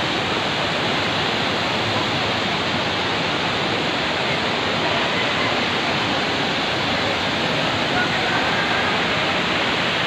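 Steady rush of a waterfall and the rocky stream below it, with faint voices of people at the pool.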